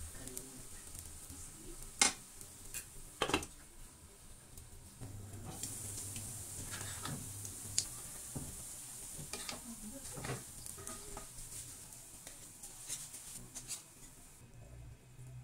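Kue bikang batter sizzling in a multi-cavity cake pan, with a few sharp clicks and scrapes of a metal fork and spatula against the pan as the cakes are checked and lifted out. The sizzling stops shortly before the end.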